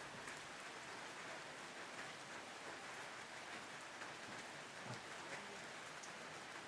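A faint, steady hiss like rain falling, with scattered faint ticks.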